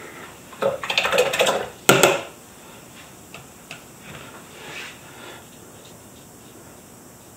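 A paintbrush clinking and rattling against a hard container, as when a watercolour brush is rinsed or loaded between colours. There is about a second of quick clatter, then one sharp tap about two seconds in, then a few faint light taps.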